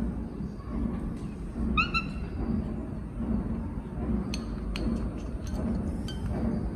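A pet monkey gives one short, rising squeak about two seconds in, over a steady low rumble, with a few light clicks later on.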